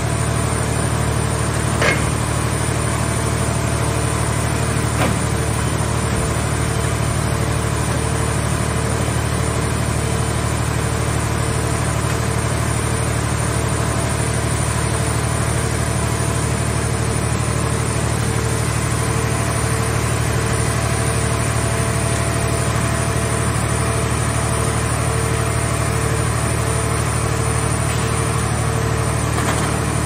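Mobile car baler's engine-driven hydraulic power unit running steadily while its grapple crane works, with an even low hum and a regular pulsing note. Two short sharp knocks stand out about two and five seconds in.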